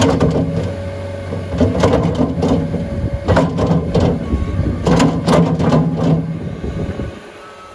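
Skid steer loader engine running while the raised bucket is shaken to dump compost into a pickup bed, with repeated bursts of rattling and clanking from the bucket and the falling load. The engine noise drops away about seven seconds in.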